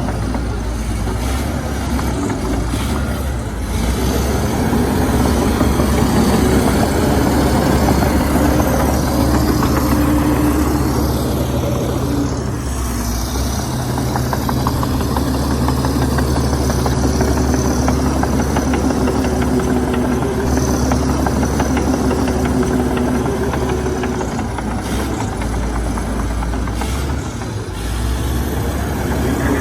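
Komatsu D61EX bulldozer's diesel engine running steadily, its note shifting up and down a few times as the throttle changes.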